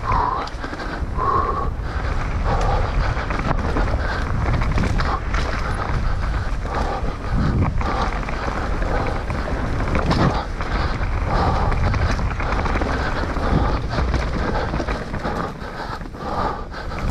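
Wind rushing over the microphone with a steady rumble and many short knocks and rattles, typical of a mountain bike ridden fast down a rough trail.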